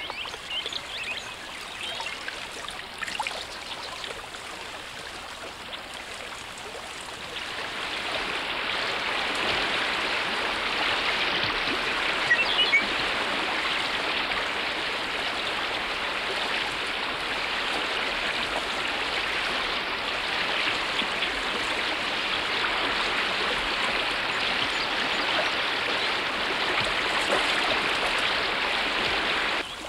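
Water pouring over a beaver dam, a steady rushing and splashing noise. It is fainter at first, grows louder about seven seconds in, and drops away just before the end.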